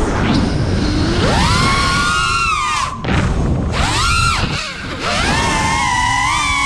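5-inch FPV quadcopter's motors whining, the pitch swooping up and down with the throttle: rising about a second in, dropping near three seconds, a short burst around four seconds, then held high from about five seconds on. A steady low rush of wind and prop wash on the drone's onboard microphone runs under it.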